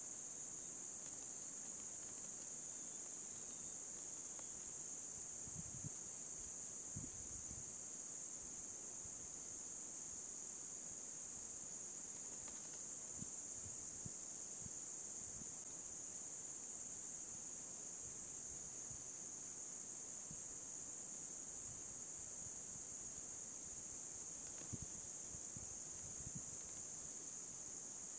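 Steady, high-pitched insect chorus, crickets or similar, trilling without a break. A few faint low knocks sound now and then.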